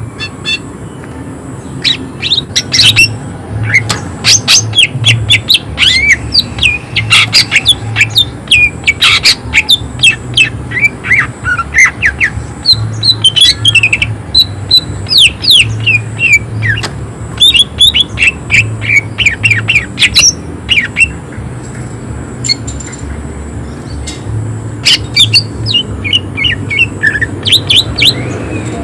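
Greater green leafbird (cucak ijo) singing in fast runs of harsh, sharp call notes and quick whistled sweeps, with a brief lull a little past two-thirds of the way through.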